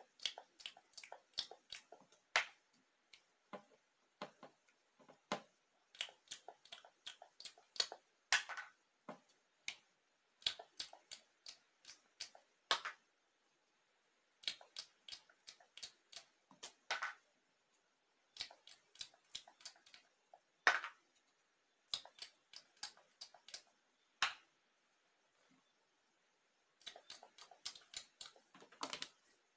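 Faint, irregular clicks and taps in small clusters: fingers picking play-dough crumbs off plastic plates and pressing them against a plastic doll's mouth.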